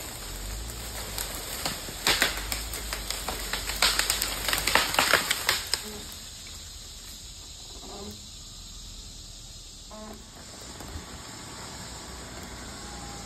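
A dead, leaning tree coming down into the brush: a run of sharp cracks and snaps of breaking wood and branches, loudest about two seconds in and again from four to six seconds, over a low steady rumble. After about six seconds the crashing stops.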